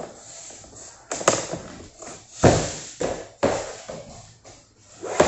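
Vinyl floor planks being fitted and knocked into place: a series of irregular taps and thuds, the loudest about two and a half seconds in.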